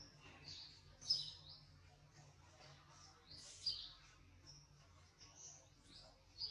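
Small birds chirping: scattered short high-pitched chirps, the loudest about a second in and again after three and a half seconds.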